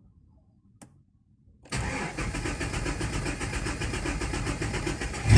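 Starter motor cranking the GM Omega CD 4.1's inline six with an even, rhythmic cranking beat for about three and a half seconds, after a single click about a second in; the engine catches right at the end. It cranks smoothly with no grinding from the new flywheel ring gear, Bendix drive and starter brushes: normal.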